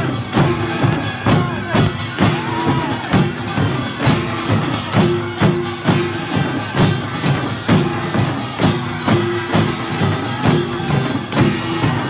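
Korean pungmul folk percussion band playing: drums and small metal gongs beating a steady, driving rhythm.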